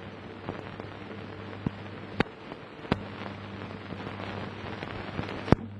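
Surface noise of an old film soundtrack: a steady hiss with a low hum, broken by scattered sharp clicks and pops, the loudest near the end.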